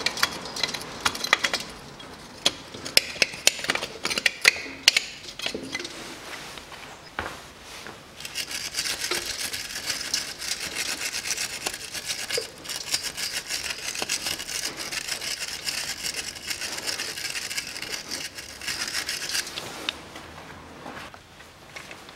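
A hand tool scraping and scrubbing caked dirt off the front differential housing around the drain plug. First come sharp scrapes and clicks, then from about eight seconds in a steady, fast back-and-forth scrubbing that stops shortly before the end.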